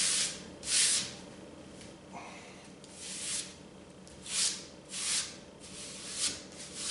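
Hands rubbing primed canvas down onto a self-adhesive foam board, a run of short dry swishes of palm on fabric, about seven at an uneven pace.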